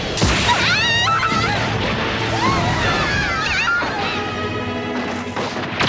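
Animated fight-scene soundtrack: music mixed with impact sound effects, a sharp crash just after the start and another just before the end, with high wavering, gliding tones between them.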